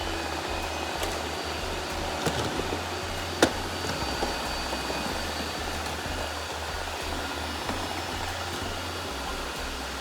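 Robot vacuum cleaner running: a steady whir of its suction fan and brushes with a low rumble that comes and goes. A sharp knock about three and a half seconds in, with a few lighter clicks around it.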